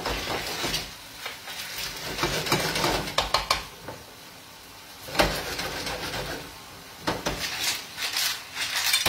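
Wooden spoon stirring and scraping gnocchi with porcini and clams in a metal frying pan, giving irregular clusters of knocks and scrapes against the pan, with the food sizzling underneath.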